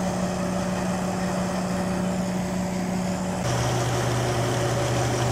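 Fiat 480 tractor's three-cylinder diesel engine running steadily as it drives a peanut thresher, the engine and thresher drum humming together. About three and a half seconds in, the hum drops abruptly to a lower steady pitch.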